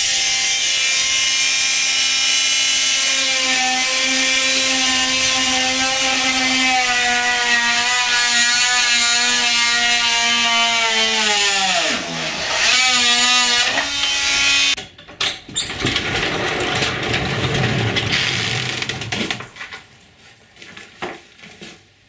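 Corded oscillating multi-tool running with a steady whine as it cuts into pine boards. A little past halfway its pitch sags and dives under load, picks up briefly and stops, then a rougher, noisier cutting buzz follows for a few seconds before it stops near the end.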